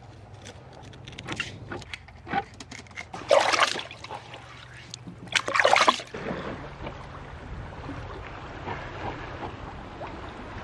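Knife taps and scrapes as a small trevally is filleted on a plastic cutting board, with two louder splashy rushes a little after three and five seconds. From about six seconds, a steady wash of water around the boat.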